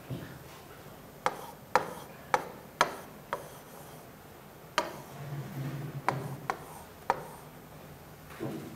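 A pen tapping and scraping on an interactive display screen as letters are written. It gives a string of sharp, irregular clicks, about nine in all, each with a short ring.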